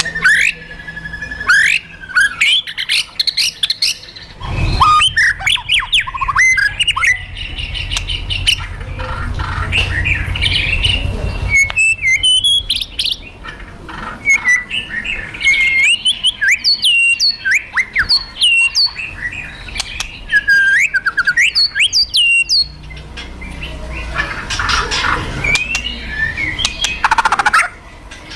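White-rumped shama calling loudly: rapid sharp whistled notes that sweep up and down, mixed with harsh crackling rattles (the 'kretekan') and short explosive notes (the 'tembakan'), the agitated calls of a fighting shama.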